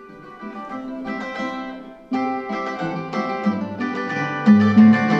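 Plucked acoustic guitar music playing from a CD, sent over Bluetooth and heard through a small speaker. It jumps louder about two seconds in as the volume knob is turned up.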